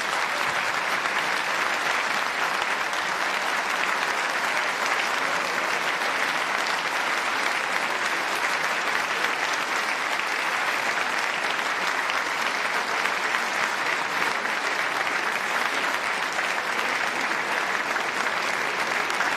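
Large audience applauding, steady and unbroken throughout: a long ovation.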